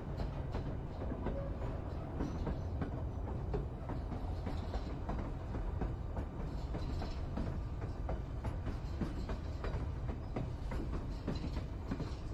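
Narrow-gauge White Pass and Yukon Route passenger train running, heard from on board: a steady low rumble with frequent irregular clicks and knocks from the wheels on the track.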